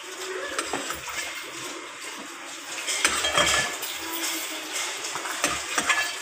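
A spoon scraping and clinking against a cooking pot and a plate as curry is dished out, in irregular knocks and scrapes, busiest about halfway through and near the end.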